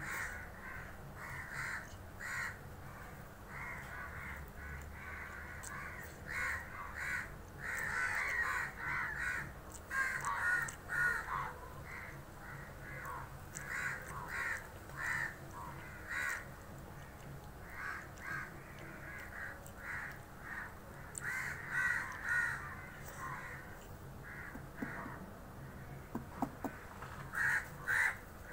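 Crows cawing over and over, in runs of short calls with brief gaps between the runs.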